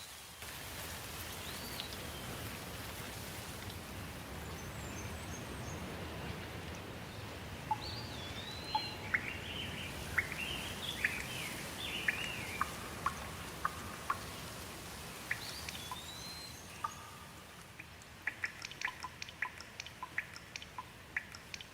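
Steady rain hiss with birds calling over it in short rising and falling chirps and whistles. Near the end the rain eases and a quick run of short sharp ticks takes over.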